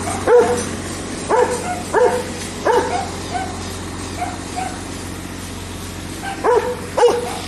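A dog barking in short single barks, about six of them, with quieter yips between, over the steady hum of an idling engine.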